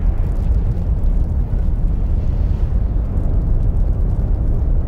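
A loud, continuous deep rumble with no breaks.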